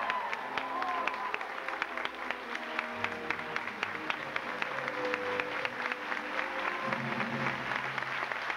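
Audience applauding with many separate claps, over music with held notes.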